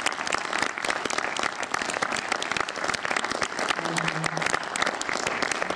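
Audience applauding, a dense, steady clapping throughout, with a voice heard briefly about four seconds in.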